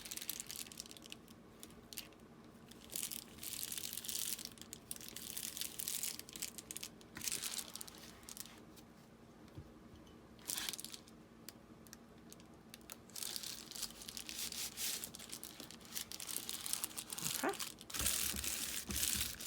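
Paper and a bubble mailer rustling and crinkling in irregular bursts as they are handled and pressed together, over a faint steady hum.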